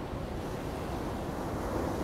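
Ocean surf on a beach: a steady rush of waves with a deep rumble underneath, swelling a little near the end.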